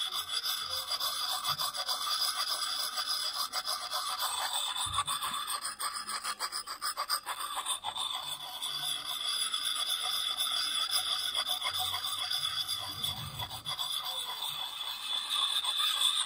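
Fine (smooth) side of a Lansky puck sharpening stone rubbed in rapid strokes against a steel hatchet edge, a continuous rasping scrape of stone on steel.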